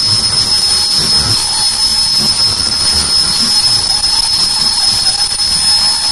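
Automatic ear-loop face mask making machine running at speed: a steady high-pitched whine over an even hiss, with faint irregular low knocking from its rollers and drives.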